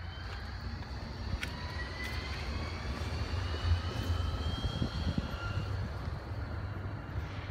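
Zurich Cobra low-floor electric tram passing close by: a low rumble from the wheels on the rails, loudest midway, with a whine from its electric drive sliding up and down in pitch.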